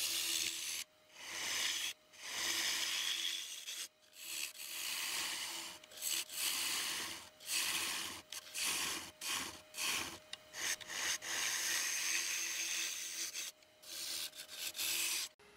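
Gouge cutting the inside of a cherry platter spinning on a wood lathe: a scraping, shaving cut in repeated passes a second or two long with brief gaps, over a faint steady hum. The cutting stops abruptly just before the end.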